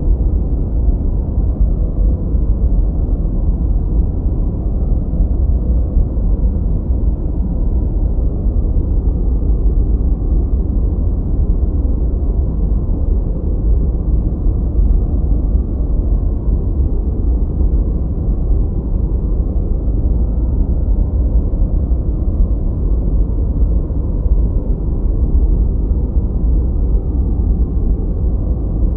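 Steady, unbroken 'gentle white noise' for sleep and masking, filtered so it is deep and dull with no high hiss, closer to brown noise than to true white noise.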